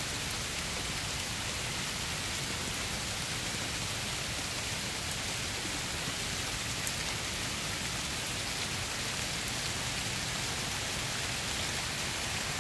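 Heavy rain falling steadily, an even hiss with no let-up, with a few faint drop ticks.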